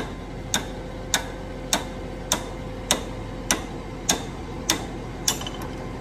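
Sharp mechanical clicks, about ten of them evenly spaced a little under two a second, over a steady machine hum.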